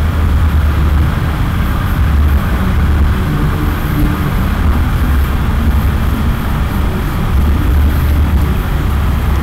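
A loud, steady low rumble with a hiss above it, unchanging throughout.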